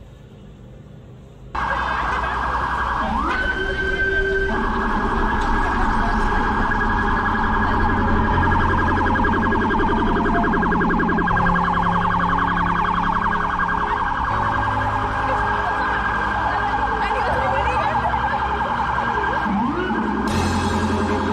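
Police siren, added as a sound effect, starting about a second and a half in: a loud, sustained wail with a fast warble, rising in pitch early on and again near the end, over a low rumble.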